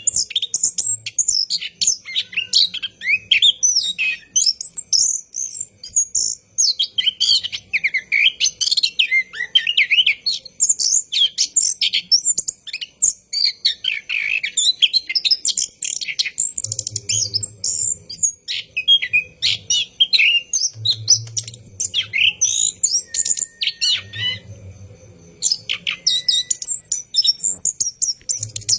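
Orange-headed thrush singing a long, rapid, continuous song of high chirps and whistles, with only brief pauses.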